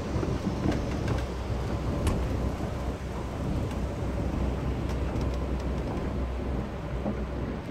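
Steady low rumble of station ambience in an open concourse, with a few faint clicks; the rumble eases near the end.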